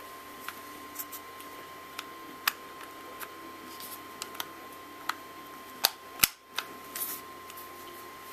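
Handling of an airsoft Desert Eagle pistol: scattered light clicks and knocks of its parts, with two sharp clacks close together about six seconds in.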